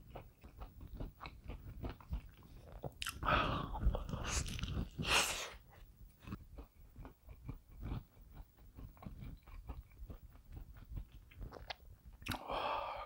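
Close-miked chewing of pizza: a steady run of wet mouth clicks and smacks, with a few louder mouth noises between about three and five and a half seconds in and again near the end.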